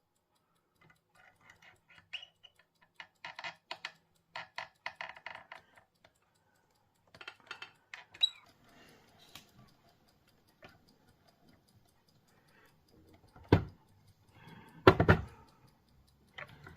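Small metal parts and tools clicking and clinking against a clock movement and a KWM bushing machine as new bushings are fitted, in irregular bursts. Two much louder knocks come near the end.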